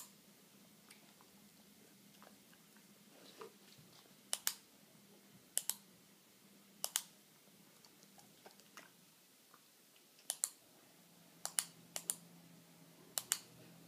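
A series of sharp clicks, mostly in quick pairs, about one pair every second or so, with a pause of a few seconds in the middle, over a faint low hum.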